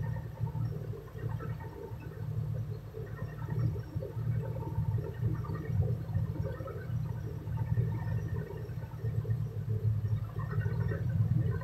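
Truck diesel engine idling, a steady low rumble heard from inside the cab, while its air compressor charges the brake air system to about 9 bar.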